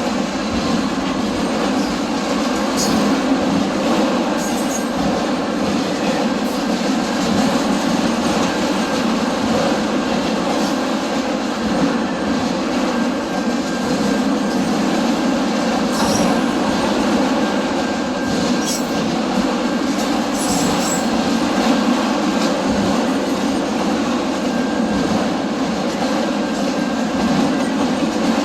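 A train rolling past on the tracks: a loud, steady rumble of wheels on rail for the whole stretch, with scattered clicks and a faint thin squeal now and then.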